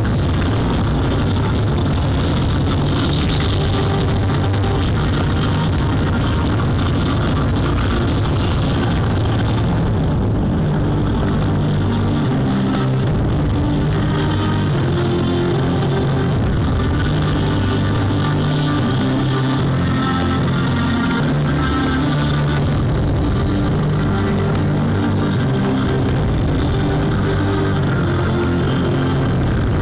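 Loud rock music with guitar and drums, the fireworks display's soundtrack heard over loudspeakers.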